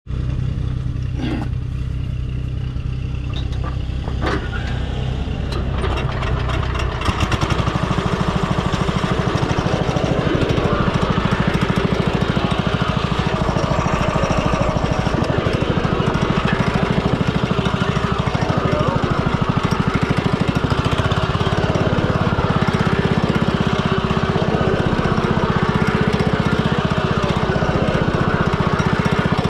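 Small engine of a John Deere garden tractor idling, then throttled up about seven seconds in and running steadily and louder as the tractor drives.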